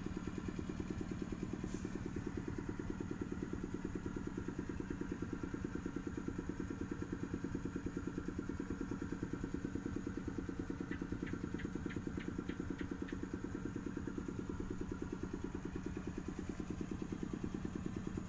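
Engine idling steadily with an even, fast pulse. A little past halfway, a run of about eight light ticks, roughly three a second, sounds over it.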